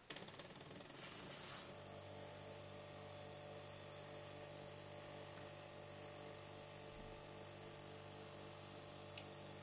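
A small stepper motor, salvaged from an old scanner, driving a model railway turntable round. It gives a faint, steady hum of several tones that settles in about two seconds in, after a short hiss.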